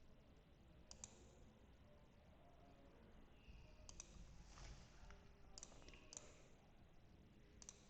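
Faint computer mouse clicks over near-silent room tone: a few scattered single clicks, with a quick double click about a second in and another near the end.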